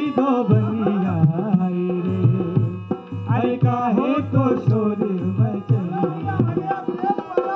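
Music for the dance: hand drums beating a steady rhythm under a melody that slides up and down in pitch.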